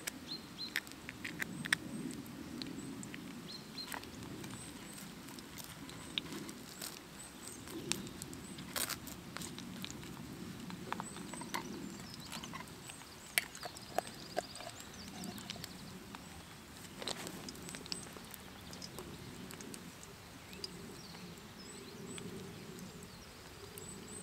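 Scattered small clicks, taps and rustles of tins, jar lids and utensils being handled during camp food preparation, over a steady low outdoor background, with a few faint bird chirps.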